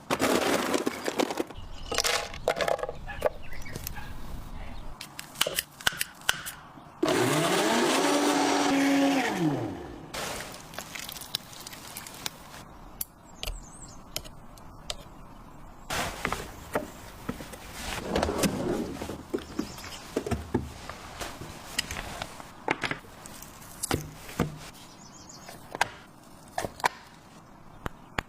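Kitchen preparation sounds, scattered knocks and clicks of utensils, with an electric blender spinning up, running for about three seconds and winding down about a quarter of the way in.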